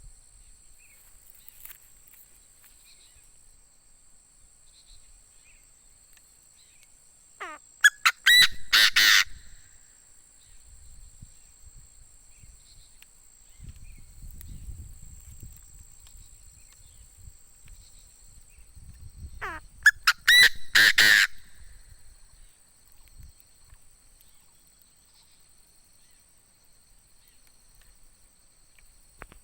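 Chinese francolin decoy male calling: two loud, harsh call bouts about twelve seconds apart. Each bout starts with a few clipped notes and builds to a dense burst of about two seconds.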